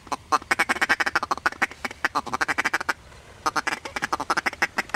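Fast runs of mallard-style quacking and chatter, about ten quacks a second, in two long strings with a short break about three seconds in.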